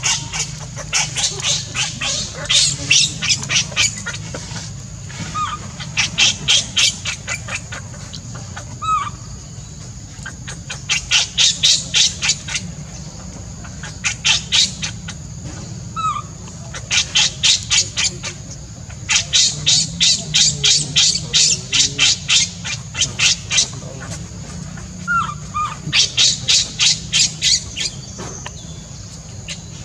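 Baby monkey screaming in rapid, shrill repeated cries, in runs of one to three seconds with short pauses between, while thrashing on its back in a tantrum. A few short bird chirps fall between the runs, over a steady high insect hum.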